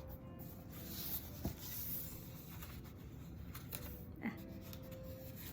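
Paper rustling and light handling clicks as the pages of a picture book are turned, with a couple of sharper taps about one and a half and four seconds in.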